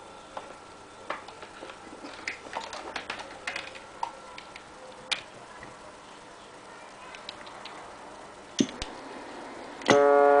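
Scattered light clicks and taps. Near the end a ship-horn roger beep starts suddenly, a loud steady horn tone with many harmonics.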